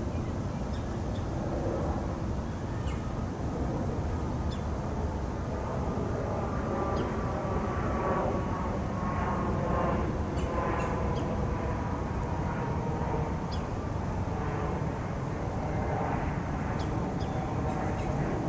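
Outdoor background noise: a steady low rumble, with a faint whine that slowly falls in pitch through the middle, and a few short bird chirps scattered throughout.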